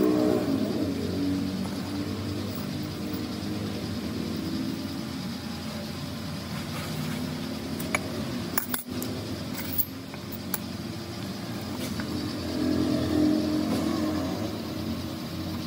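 An engine running steadily in the background, growing louder for a couple of seconds about three quarters of the way through. A few light metallic clicks and taps come in the middle as the steel ruler and jack parts are handled.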